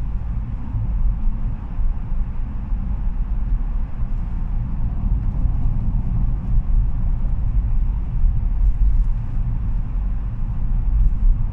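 In-cab sound of a Ford Ranger with the 2.0 TDCi EcoBlue diesel on the move: a steady low rumble of engine and road noise that rises a little near the end.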